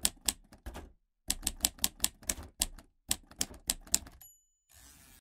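Typewriter sound effect: three runs of rapid key clacks, then a short bell ding about four seconds in, followed by a brief soft hiss.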